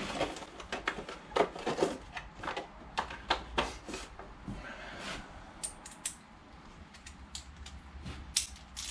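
Irregular light clicks and taps of hand tools and metal fork parts being handled on a workbench. The clicks are busiest in the first few seconds, thin out, then return as a few sharper clicks near the end.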